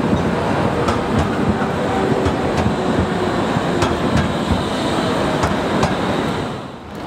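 Low-floor tram passing close by, its steady running noise broken by a string of sharp clicks as the wheels cross rail joints and crossing track. The sound dips briefly near the end.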